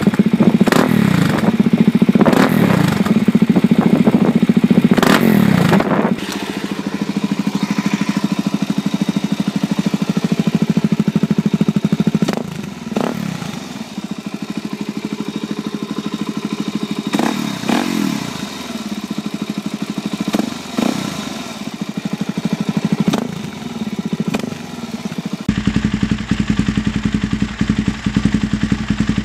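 Suzuki DR-Z400 single-cylinder four-stroke engine running through Yoshimura aftermarket mufflers. For the first six seconds it is revved repeatedly through a Yoshimura RS-2, then it idles with a few short throttle blips through a carbon Yoshimura RS-2. Near the end it changes suddenly to a steady idle through a Yoshimura RS-3 on another DR-Z400.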